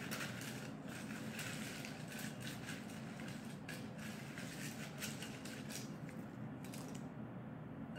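Irregular light crackling and clicking from hands handling small objects, thinning out about six seconds in.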